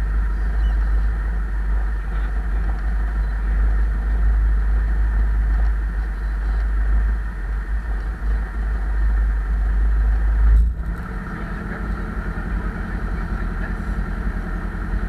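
Single-engine light airplane's piston engine and propeller running at low power while the plane rolls along the ground after landing, heard inside the cabin with a steady deep rumble. About ten and a half seconds in the sound changes abruptly: the deep rumble drops away, a steadier hum takes over and it gets a little quieter.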